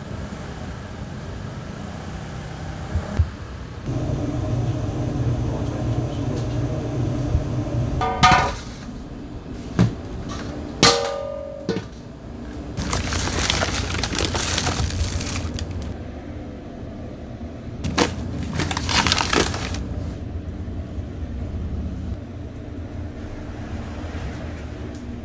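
Food-preparation sounds in a pizza kitchen: a steady low hum with scattered clinks and knocks, and two longer bursts of noise, the first lasting a couple of seconds.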